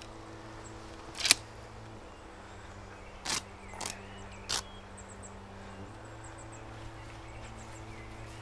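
A knife slitting and ripping open a heavy wool uniform. There is one loud sharp rip about a second in, then three shorter ones between about three and four and a half seconds in, over a low steady drone.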